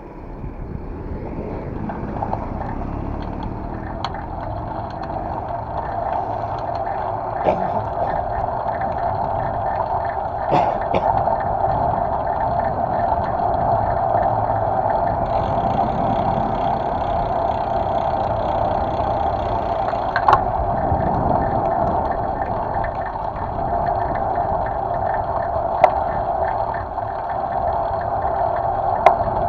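Steady wind and road noise picked up by a handlebar-mounted camera on a moving bicycle, with a few short knocks from bumps in the asphalt.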